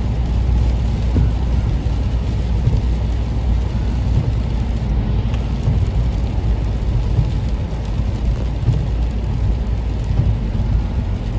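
Steady cabin noise of a car driving on a wet road in rain: a low road and engine rumble under the hiss of tyres on wet tarmac and rain on the windscreen.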